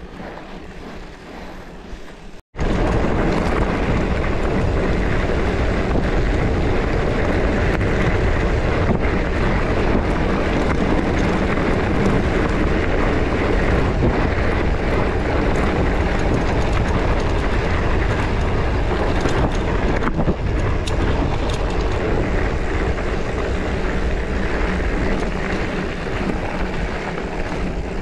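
Wind rushing over the microphone with the rolling noise of a mountain bike on a trail. It is quieter at first, then loud and steady after a short break about two and a half seconds in.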